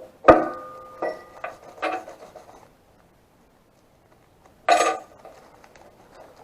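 Small metal objects being handled and set down: a sharp clank with a short ringing tone just after the start, lighter clinks over the next two seconds, then a brief rattle a little over a second before the end.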